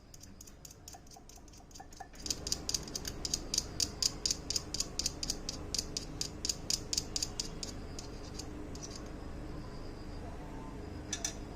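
Rapid, evenly spaced mechanical clicking like a ratchet, about five clicks a second, starting about two seconds in over a steady hum and stopping after about six seconds; a couple more clicks come near the end.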